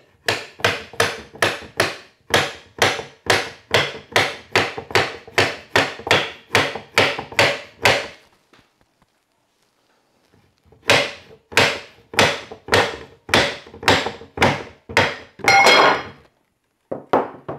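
Soft-faced mallet repeatedly striking the aluminium side bracket of a 3018 desktop CNC router, about three blows a second, to drive it off the steel guide rods that are glued into its pockets. The blows stop for a couple of seconds about eight seconds in, then resume, with a brief metallic ring near the end of the second run and two last taps.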